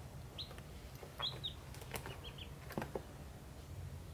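Baby birds peeping: about five short, high cheeps that fall in pitch, with a few light taps in between.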